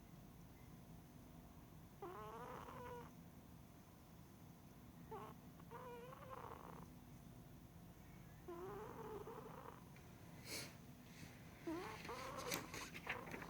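Faint sound of a sleeping cat snoring: a squeaky, pitched snore that rises and falls, about a second long, repeating every two to three seconds with its breathing. A few sharp clicks come near the end.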